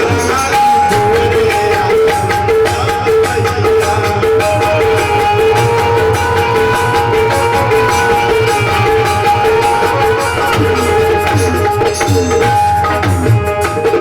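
Live Indian folk music, played without singing: hand drums keep a steady beat under a melody instrument holding long, sustained notes.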